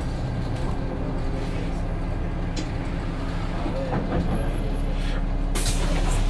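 Solaris Urbino III 12 Hybrid city bus running, heard from on board: a steady low hum with a few faint clicks and rattles.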